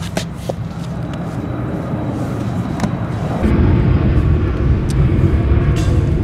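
Low rumble of road traffic, a passing vehicle growing louder about three and a half seconds in, with a few light taps and rustles as Bible pages are turned.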